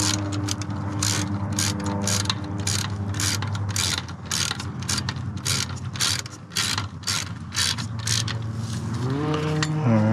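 Hand socket ratchet clicking in quick, regular strokes, about three clicks a second, as it turns a bolt on a motorcycle radiator-guard bracket; the clicking thins out after about seven seconds. A steady low hum runs underneath.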